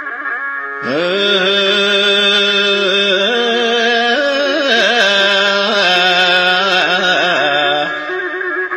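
Ethiopian Orthodox zelesegna mezmur: a male singer comes in about a second in, holding a long, ornamented melisma on the syllable "ehe" over instrumental backing.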